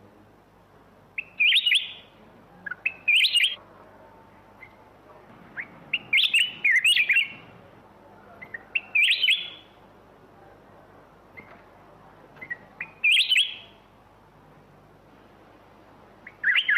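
Black-crested bulbul singing: short, bubbly warbled phrases repeated every two to four seconds, about seven in all, with a few faint single chirps between them.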